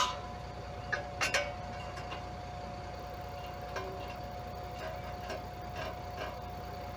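A sharp click, then a few light metal clinks and taps over a steady faint hum, in a pause between welds on a steel gate frame.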